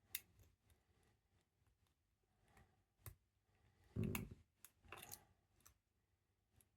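Faint, scattered clicks of a hook pick working the pins of an Elzett half Euro pin-tumbler cylinder held under pry-bar tension, with a duller knock about four seconds in.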